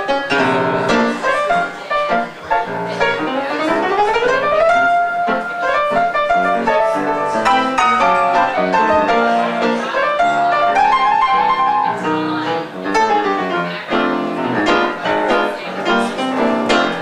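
Solo jazz piano playing: chords and quick runs, with notes climbing up the keyboard a few seconds in.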